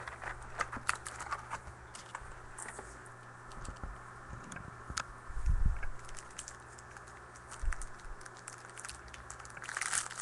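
Scattered small clicks and rustles of trading-card packs and cards being handled, with a couple of dull thumps near the middle, over a steady low hum.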